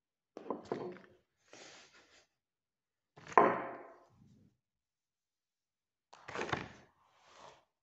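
A girl's short frustrated grunts and huffs, several separate ones, the loudest a little over three seconds in.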